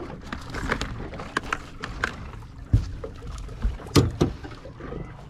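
A crab pot being handled with a large female mud crab inside: irregular clicks and clatter, with a few heavy thumps, the loudest about four seconds in.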